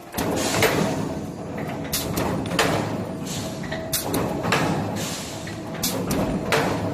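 Mechanical round-bar cutting shear running, with a steady machine noise and sharp metallic clacks that come in pairs about every two seconds as it works through steel bar.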